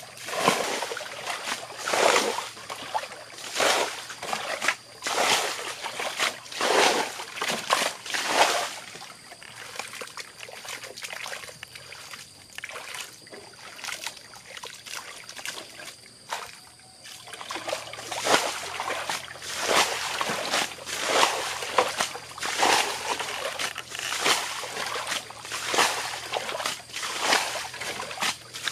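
Water being bailed out of a muddy stream bed with a plastic bucket: repeated splashes about once a second, easing off for several seconds in the middle, over shallow water trickling across the mud.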